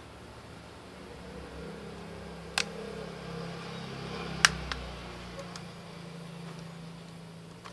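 A smartphone handled and turned over in the hands: two sharp clicks, the second about halfway through and the loudest, then a few fainter ticks, over a steady low background hum.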